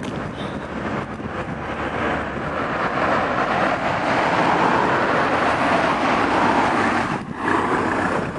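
Steady rumble and hiss of a moving vehicle, heard from inside it, with a brief dip a little after seven seconds in.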